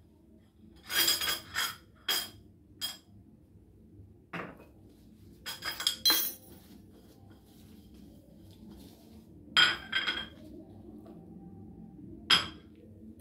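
Sharp clinks and knocks of a ceramic teacup, its saucer and a small tea strainer being handled. They come in irregular clusters every second or two, and several strikes ring briefly.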